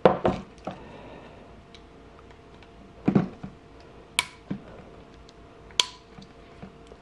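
Small metal parts of a brake master cylinder handled by hand: a couple of loud knocks at the start, a duller knock about three seconds in, and sharp metallic clicks about four and six seconds in.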